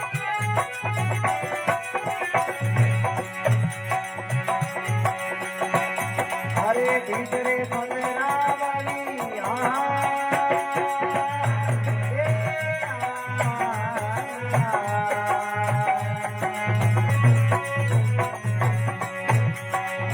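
Instrumental passage of a Rajasthani folk bhajan: a hand drum keeps a steady rhythm under a melody with held and bending notes.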